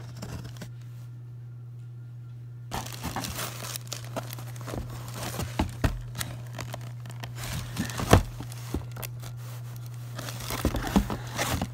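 Plastic packaging crinkling and crackling under handling, in dense irregular bursts that start about three seconds in, with one sharp crackle about eight seconds in. A steady low hum runs underneath.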